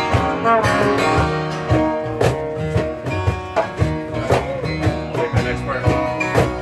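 Live acoustic music: guitar playing with a steady, regular beat.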